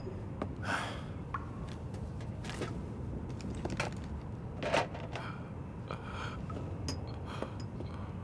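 Rummaging through a doctor's bag: scattered clicks, light clinks and rustles of items being moved by hand, over a low steady room hum.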